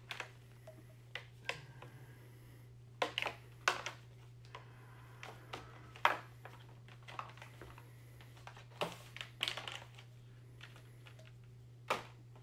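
Sterile plastic packaging and a rigid clear plastic tray handled as a Bakri postpartum balloon kit is unpacked: irregular clicks, taps and crinkles, a few of them sharper, over a steady low hum.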